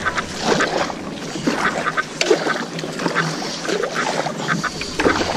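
Kayak paddle dipping and splashing in shallow water as a stand-up paddle board is paddled along, with water sloshing and dripping and small irregular knocks.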